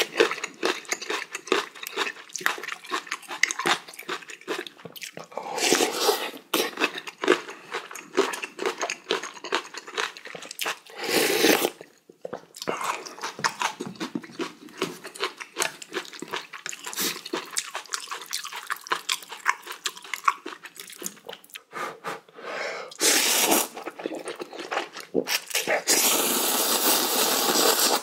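Close-miked eating of spicy instant ramen: wet chewing and mouth sounds, broken by several loud slurps of noodles and broth and a long, loud noodle slurp near the end.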